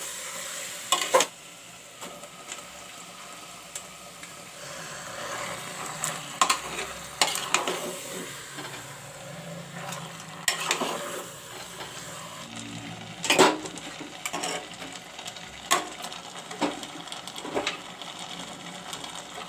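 Metal spoon stirring raw mutton pieces into frying masala in an aluminium pressure cooker, knocking and scraping against the pot now and then over a steady sizzle.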